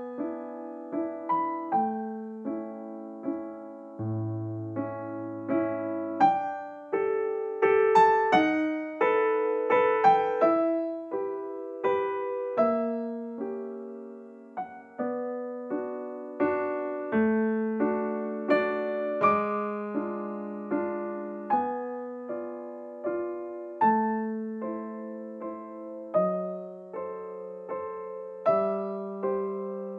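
Background piano music: a melody of struck notes, each dying away, over lower held notes.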